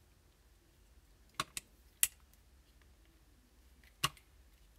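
A few sharp clicks and taps as an Eclipse CS3 mech frame and its grip panels are handled and fitted: two quick clicks about a second and a half in, a louder one at two seconds, and another near the end.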